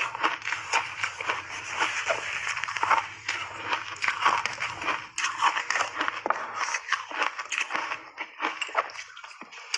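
Shaved ice with matcha powder and milk cream being chewed in big bites: a dense run of crisp crunches that thins out over the last couple of seconds.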